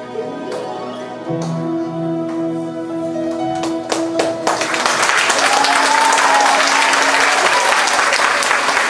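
A song ends on held notes, and an audience breaks into loud applause about halfway through, with a voice cheering over the clapping.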